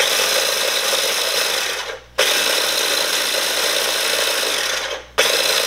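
Small electric food chopper running, grinding Flamin' Hot Cheetos into fine crumbs. It is run in pulses, cutting out briefly about two seconds in and again about five seconds in, then starting again each time.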